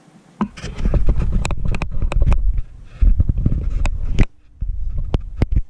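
Handling noise on the camera's microphone: a heavy low rumble with a run of knocks and rubs as the camera is moved. It stops for a moment about three quarters of the way through, then comes back briefly.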